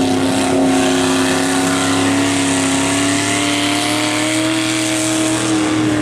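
Mud-bog pickup truck's engine held at high revs as the truck powers through a mud pit, its note climbing slowly and steadily over the noise of the spinning tyres.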